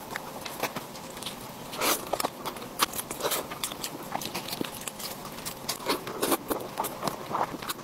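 Whole roasted kiln chicken being torn apart by gloved hands and eaten close to the microphone: irregular wet tearing, crackles and smacking bites and chewing.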